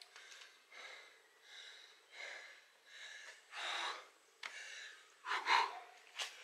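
A man breathing hard from exercise: quick, heavy breaths a little under a second apart, with two louder gasps in the middle.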